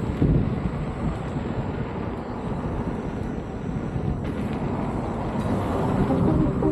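Wind buffeting the camera's microphone during a ride, a dense, steady low rumble.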